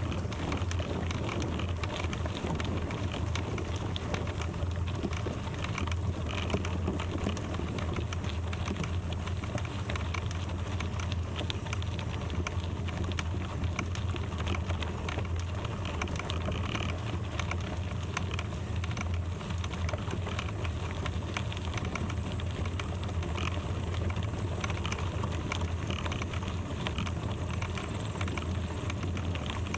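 Bicycle tyres rolling over gravel: a dense, steady crackle of small stones under a steady low rumble of wind on the microphone.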